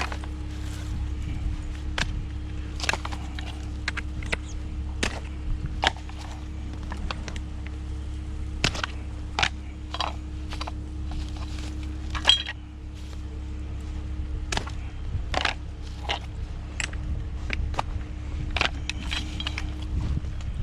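Irregular knocks, clacks and rustles of junk being handled and shifted while rummaging through a curbside trash pile, over a steady low hum.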